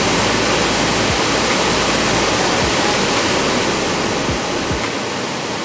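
Loud, steady rush of a waterfall tumbling through a narrow rock gorge, with a few dull low thumps.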